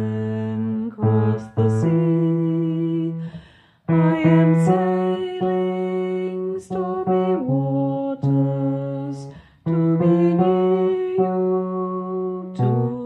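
A bass voice singing the long held notes of a song's bass line, with other notes sounding along with it, as in a choir part-learning recording.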